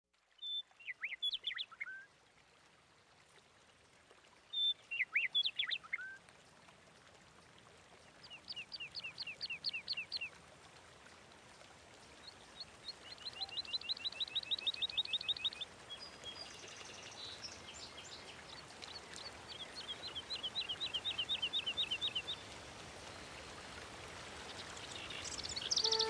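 Songbird song: six separate phrases a few seconds apart, each a fast trill of repeated high, down-slurred notes, over a faint steady hiss.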